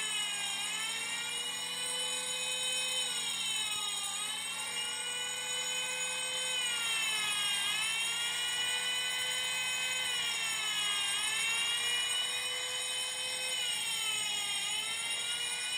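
Electronic fire-alarm siren wailing, its pitch rising and falling slowly about every three and a half seconds, with the fire alarm bell ringing steadily along with it. This is the preaction sprinkler system's alarm, set off from the receiver's manual start switch.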